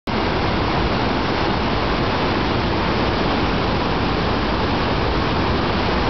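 River whitewater rapids rushing: a steady, unbroken sound of churning water.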